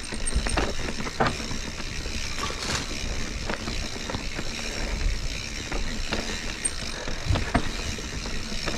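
Cross-country mountain bike rattling over a rough rocky trail: steady tyre and drivetrain noise with scattered knocks and clanks from the chain and frame as it hits rocks.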